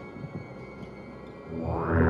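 Background music: quiet sustained tones, then a loud swell of music comes in about one and a half seconds in.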